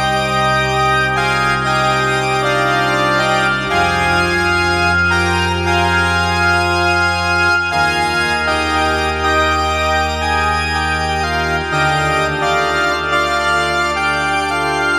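Korg Z1 multi-oscillator synthesizer played with an organ patch: sustained minor chords over a held bass note, changing to a new chord about every four seconds.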